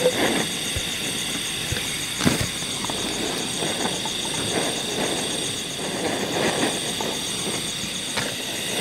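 Steady chorus of forest insects, high rapidly pulsing trills. Over it come a couple of sharp knocks, one about a quarter second in and one just after two seconds, and some soft clattering.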